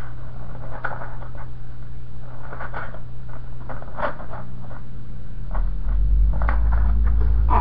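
Paper pages of a homemade book being handled and turned: scattered soft rustles and scrapes over a steady electrical hum, with a low rumble coming in about five and a half seconds in.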